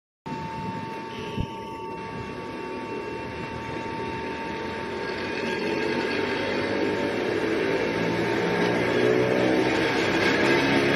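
Pair of ED45 electric locomotives pulling away from a stand with empty cement tank wagons: steady running noise that builds in loudness, with a low motor hum slowly rising in pitch as they gather speed. A steady high tone sounds over the first few seconds, and there is a single sharp click about a second and a half in.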